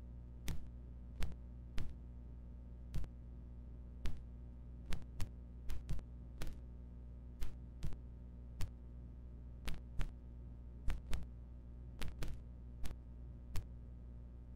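Irregular small sharp clicks and knocks from pliers and hands working wire and wood strips on a model, roughly one or two a second, over a steady low hum.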